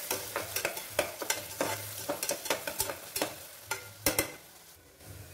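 A steel spatula stirring and scraping chopped onions as they fry in oil in an aluminium pressure cooker: a steady sizzle with frequent sharp metal-on-metal clicks. The onions are being sautéed until they change colour. The clicks thin out after about four seconds.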